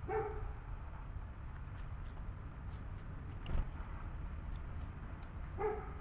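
Two short pitched animal calls, one at the very start and one near the end, with a single thump about halfway between, over a steady low rumble.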